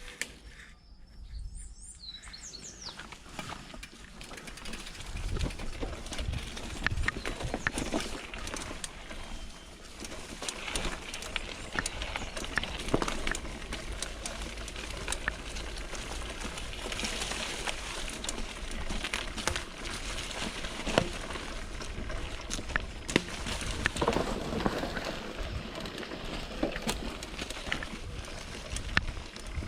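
Mountain bike ridden along a forest trail: tyre noise on the dirt with frequent clatters and knocks over bumps, and wind rumble on the microphone. It builds up over the first few seconds.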